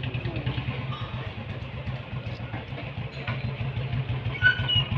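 Motorcycle engine running at low speed as the bike rides up slowly, with an even, rapid pulse that grows a little louder near the end. A brief high squeak sounds about four and a half seconds in.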